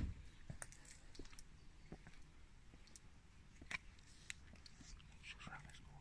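Near silence broken by faint, irregular clicks and ticks, a few at a time, with no steady rhythm.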